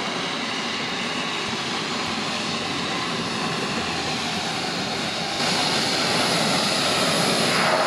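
Steady drone of a small twin-engine turboprop aircraft's engines and propellers. About five seconds in it steps up louder and brighter.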